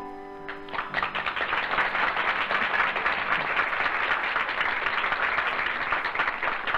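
The last chord of an accordion-and-piano piece dies away, and applause breaks out under a second in and carries on steadily.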